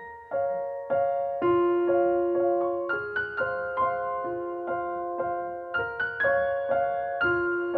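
Soft background piano music: a slow melody of single struck notes, about two a second, each fading, over held lower notes.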